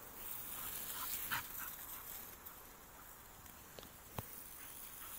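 A Staffordshire bull terrier giving a few short whimpers about a second in, over a steady hiss from a garden hose spray. Two sharp clicks come near the end.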